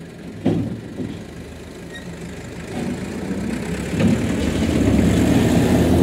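Farm tractor's diesel engine running, growing louder about three to four seconds in as it takes the load of pushing a road roller with its front-loader bucket. A single knock sounds about half a second in.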